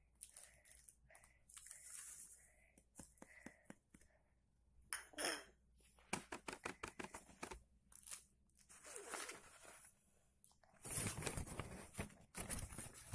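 Baking soda being tipped and pushed down a rolled newspaper funnel into a bottle: the paper rustles and crinkles, with scratchy scrapes and a run of quick taps about halfway through. The rustling is loudest near the end.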